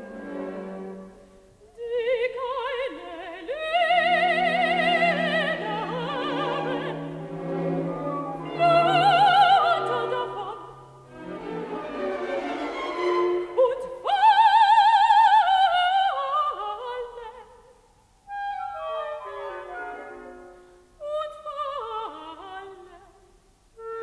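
A mezzo-soprano sings long phrases with wide vibrato over a classical orchestra. After a brief dip about three-quarters of the way through, softer, shorter orchestral figures follow.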